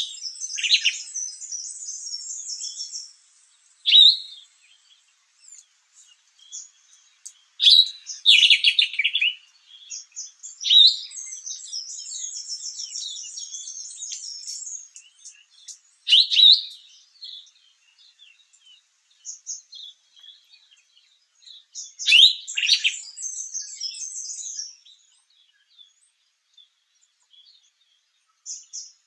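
Sombre greenbul calling: loud, short calls every few seconds, with gaps between. Other small birds twitter fast and high behind it for long stretches.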